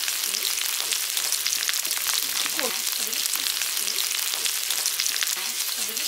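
Beef steaks frying in their own juices on an electric griddle (Abien Magic Grill), a steady sizzle with a dense crackle of spitting fat.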